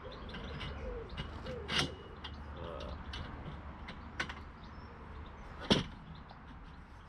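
Aluminium tubes of a homemade mast-raising A-frame knocking and clinking together as they are handled with the eye bolt through them. The loudest clank comes near the end, with lighter knocks before it. A pigeon coos in the background early on.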